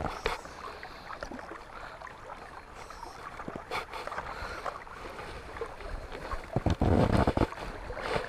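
River water sloshing and splashing around a wading angler handling a trout, with a few small knocks. The sound grows louder and lower for about a second, roughly six and a half seconds in.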